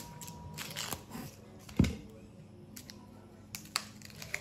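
Chef's knife cutting an onion on a cutting board: one sharp knock of the blade striking the board a little under two seconds in, with lighter clicks and crackles from handling and peeling the onion.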